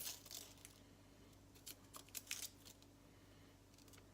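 Dry shallot skin being peeled off by hand: a faint papery crinkle and tearing at the start, then a few light ticks and rustles.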